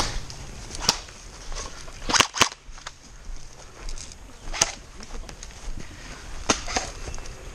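Airsoft rifles firing single semi-automatic shots: about seven sharp cracks at irregular intervals, including a quick pair a little over two seconds in.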